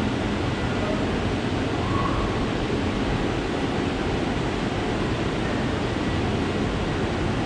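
Steady rushing ambient noise of an underground metro platform.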